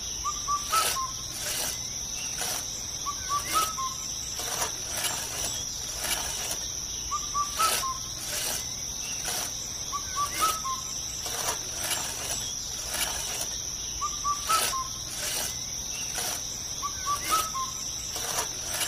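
Nature ambience of a steady high insect drone, with short bird chirps repeating every few seconds and scattered soft clicks.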